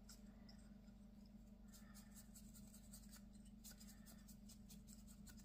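Faint, repeated scratching of a dry flat paintbrush scrubbed in short strokes over a painted figurine while it is drybrushed, over a steady low hum.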